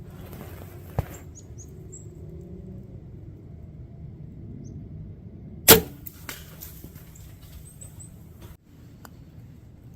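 A bow shot a little after halfway: one loud, sharp crack of the bow's release and arrow, followed by a few fainter cracks and rustles. A single light click comes about a second in, and small birds give short high chirps.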